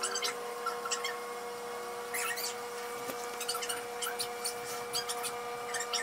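Ballpoint pen scratching on notebook paper in short, irregular strokes as a list is written, over a steady background hum.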